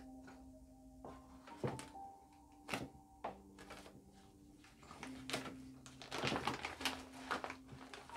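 A few sharp knocks as a wooden-handled tool is jabbed into the soil of a plastic nursery bag, then a run of crackling and rustling from about six seconds in as the plastic bag is pulled off the root ball. Soft background music with held notes plays underneath.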